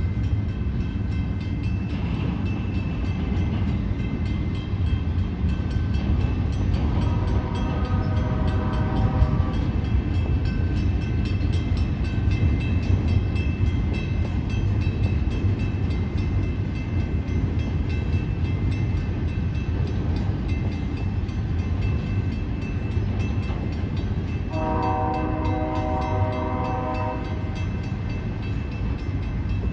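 A train rolling past with a steady low rumble of railcars, while the locomotive's air horn sounds two long blasts, one about seven seconds in and another near the end.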